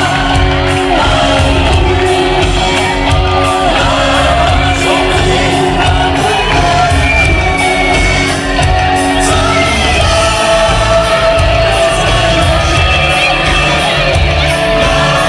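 Loud music with a singing voice, with a crowd shouting and whooping over it.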